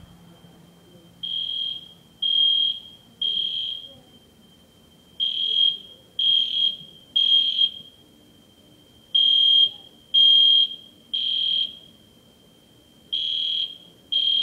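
Fire alarm sounding in the temporal-three evacuation pattern: three high-pitched beeps about a second apart, then a pause of about a second and a half, repeating.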